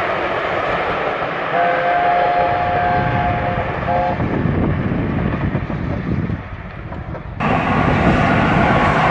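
LNER A4 Pacific steam locomotive's chime whistle sounds a long blast of two or three notes together for about two seconds, then a short second blast, over the rumble of its train of coaches passing and fading. About seven seconds in the sound cuts abruptly to louder, closer train noise.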